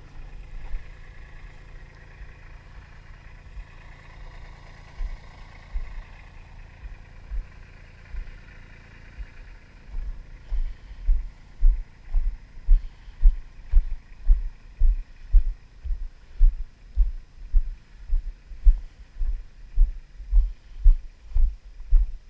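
Footsteps on graded dirt, heard as heavy dull thuds through a body-worn camera, about two a second from around ten seconds in. Before that a low steady hum.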